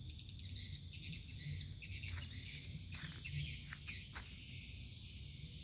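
Night insects chirring steadily, crickets among them. A few short high calls that drop in pitch come between about two and four seconds in.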